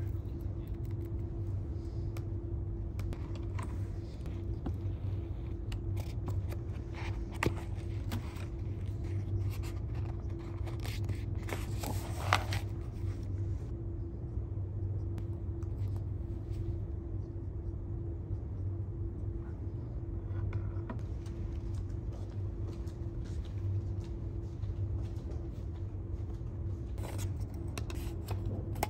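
Steady low room hum with a faint steady tone, under scattered light clicks and scrapes from handling at a desk; a louder short rustling scrape comes about twelve seconds in.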